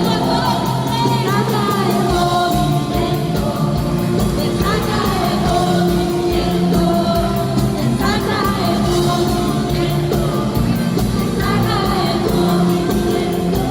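Live worship music: a church band playing with singing voices over a steady beat, loud and continuous.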